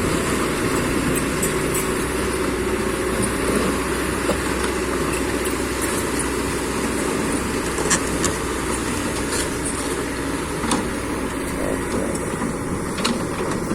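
Excavator's diesel engine running steadily while the machine compacts freshly reclaimed ground, with a few short knocks and clicks scattered through it.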